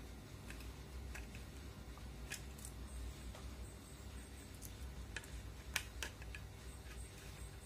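Faint, scattered clicks and ticks of a small tear-off post screw being turned into the hole of a plastic helmet visor, with a sharper click near six seconds, over a low steady hum.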